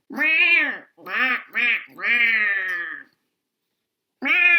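A woman's voice making wordless, quack-like animal calls in a high, squeaky voice, as a character sound for a puppet: one long call, two short ones and another long one, then a pause, and a new call near the end.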